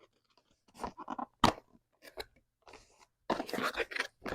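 Cardboard and plastic packaging being handled as a camera box is opened: a few short scrapes and crackles, then a denser run of crinkling and rustling about three seconds in.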